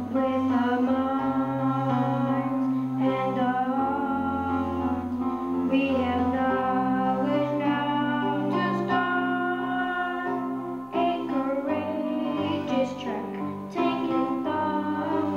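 A boy singing a solo into a microphone over instrumental accompaniment, the voice carrying a melody above held bass notes.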